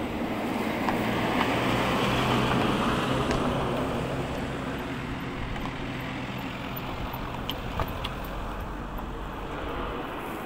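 A motor vehicle's engine and tyre noise on the road, swelling to its loudest about two to three seconds in and then easing off to a steady lower level.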